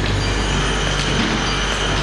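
Tilting induction melting furnace pouring molten metal into a crucible: a loud, steady hum and high whine over a hiss, with a few sharp crackles as sparks fly.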